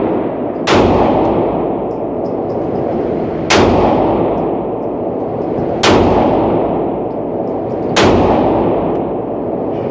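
Four single gunshots fired slowly, about two to three seconds apart, each followed by a long echoing decay.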